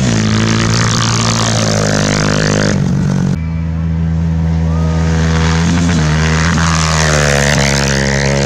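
Off-road rally motorcycle engines running hard at high revs, the pitch rising and falling as the riders pass and change gear. The sound changes abruptly about three seconds in.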